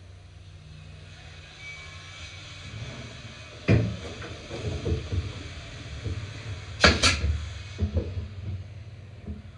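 Wooden knocks and bangs: a sharp knock about four seconds in and a louder double bang about seven seconds in, with softer knocks between, over a low steady hum.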